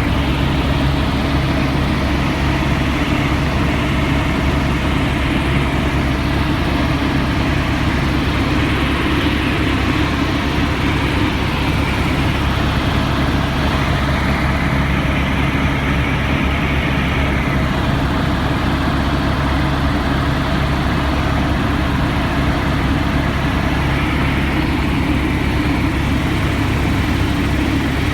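Helicopter engine and rotor noise heard from inside the cabin: a loud, steady drone with a low hum.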